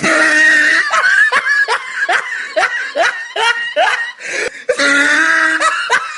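A person laughing hard in high-pitched, quick bursts, about three a second, with longer drawn-out notes near the start and about five seconds in.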